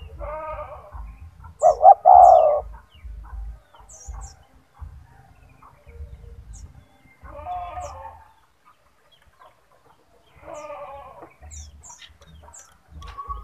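Spotted dove (tekukur) cooing in four phrases, the loudest about two seconds in, with faint high chirps scattered between.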